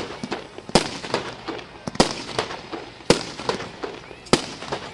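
Aerial fireworks bursting: four sharp bangs about a second apart, with smaller pops and crackles between them.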